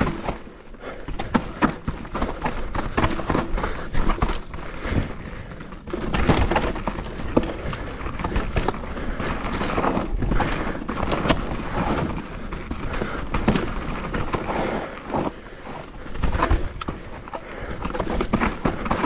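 Mountain bike descending a rough downhill trail: tyres running over dirt and rocks, with frequent irregular clunks and rattles as the bike hits bumps.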